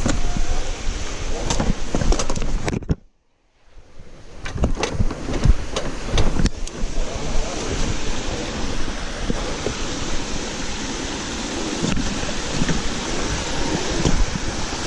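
Wind buffeting the microphone of a bike-mounted or body-worn camera, a steady rushing noise broken by scattered clicks and knocks from the bike over rough, rocky trail. The sound cuts out briefly about three seconds in, then the wind noise and rattles resume.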